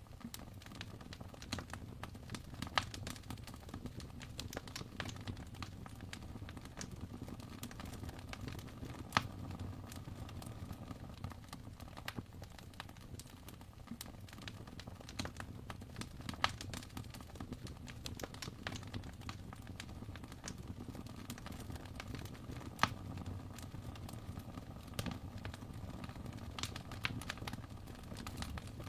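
Wood fire in an open fireplace crackling: irregular sharp pops and ticks over a steady low rumble, with a few louder pops scattered through.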